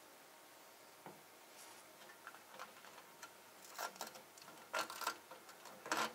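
Scattered small clicks and ticks, a few louder ones in the second half, from hands handling a fiber-optic patch cable and its plastic connector at a network switch.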